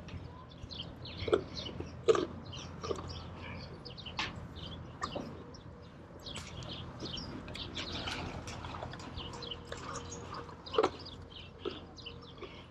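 Horses crunching carrots: a run of irregular short crunches and clicks, with a few louder bites about a second in, about two seconds in, and near the end.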